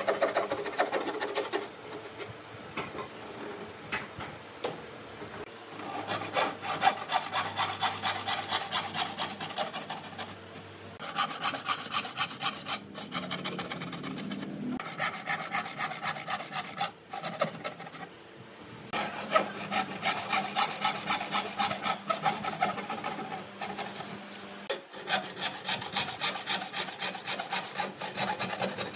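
Thin-bladed hand frame saw cutting shallow kerfs into the edge of a wooden board: quick back-and-forth rasping strokes in several bouts, with short pauses between cuts.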